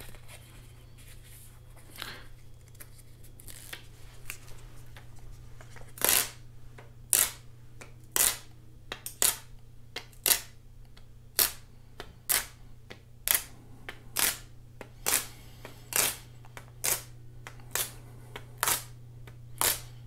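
A dust removal sticker is dabbed onto an iPad Pro's glass screen and pulled off again and again, making a short sharp sound roughly once a second from about six seconds in. A steady low hum runs underneath.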